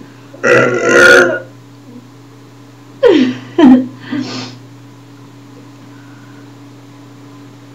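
A girl burping on purpose: one long burp about half a second in, then a quick run of three shorter burps about three seconds in, the first two falling in pitch.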